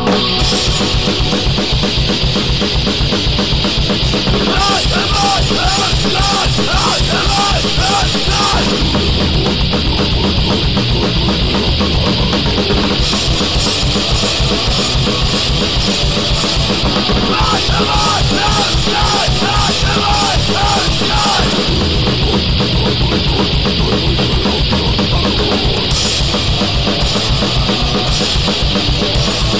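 Fast punk rock played on distorted electric guitar and drum kit, without vocals. A higher wavering melody line comes in about five seconds in and again around seventeen seconds.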